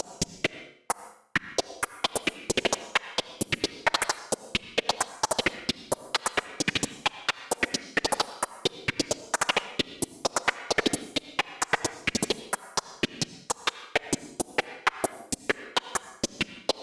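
Eurorack modular synthesizer sequenced by a Malekko Varigate 8+ step sequencer, playing a fast stepped pattern of short, clicky percussive blips and pitched notes. It briefly drops out about a second in, then the pattern carries on.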